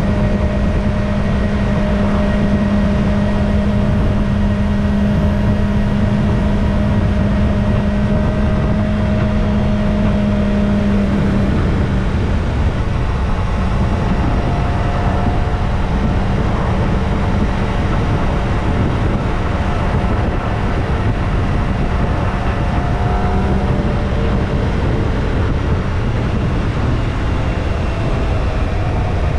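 Kawasaki ZX-25R's inline-four engine with stock exhaust running at a steady cruise, under a dense low rumble of wind and road noise. The engine note holds steady, then eases off a little about twelve seconds in.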